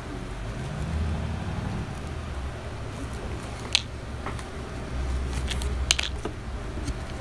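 Close-up handling sounds of hand-sewing a plastic snapback strap onto a mesh cap: the mesh and strap rustling and thread being drawn through, with two sharp clicks about four and six seconds in. A low rumble comes near the start and again around five seconds in.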